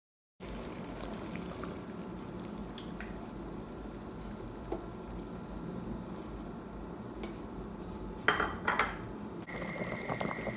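Kitchen handling sounds: dishes and utensils clinking over a steady background noise, with two sharp clatters about a second apart near the end and a steady high tone coming in just after them.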